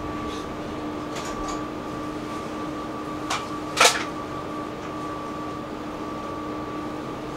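Tram interior: a steady hum of fans and electrical equipment, holding two constant tones, one low and one higher. A little past halfway come two sharp clicks about half a second apart, the second louder.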